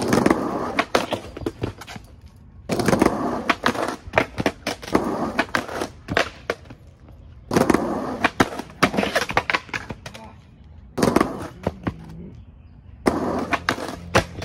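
Skateboard wheels rolling over rough concrete in five runs of a few seconds each, with sharp clacks of the board popping and landing.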